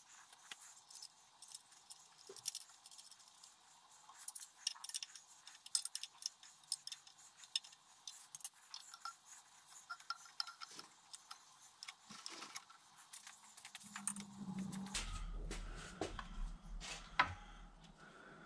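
Small metal parts clicking and clinking as a drill press's V-belt tensioning mechanism is handled and refitted by hand, with many light irregular ticks. A steady low hum comes in about three-quarters of the way through.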